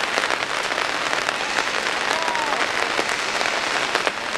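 Steady hissing noise full of small ticks and crackles, with a faint distant call or shout about two seconds in.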